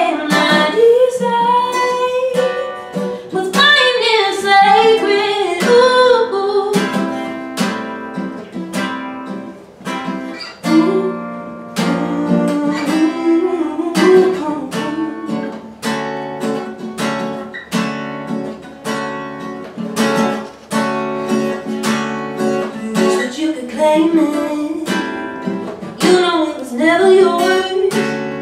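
A woman singing to her own strummed acoustic guitar, with short guitar-only stretches between vocal phrases.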